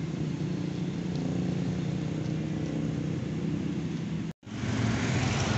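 Steady low rumble of road traffic and running engines, cutting out for an instant about four seconds in.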